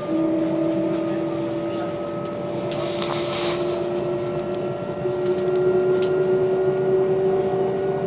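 Class 387 electric multiple unit's traction whine heard on board: a steady tone that sets in at once and then rises slowly in pitch as the train picks up speed, over the rumble of running noise. There is a brief rush of noise about three seconds in.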